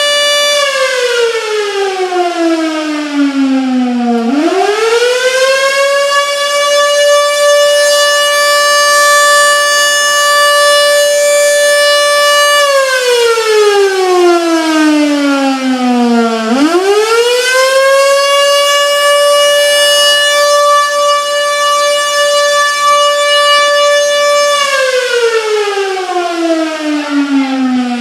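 Single-tone electromechanical warning siren sounding a tornado warning. It holds one steady pitch for about eight seconds, winds down over about four seconds, then quickly spins back up to full pitch, repeating the cycle.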